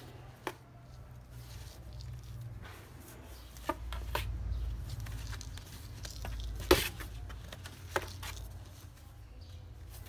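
A kitten scrabbling and thrashing on the floor of a cardboard box, its paws and body knocking against the cardboard: about five scattered sharp knocks with light scratching between them, the loudest about two-thirds of the way through, over a low rumble.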